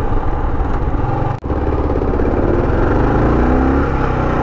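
Kawasaki KLR650's single-cylinder engine running under load while riding, rising in pitch as the bike accelerates about three seconds in, pulling smoothly on its freshly rebuilt carburetor. The sound cuts out for an instant about a second and a half in.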